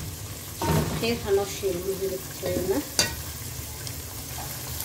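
Wooden spoon stirring and scraping diced meat in a metal pot over a steady sizzle of frying. A single sharp knock comes about three seconds in, as the spoon is laid against the pot.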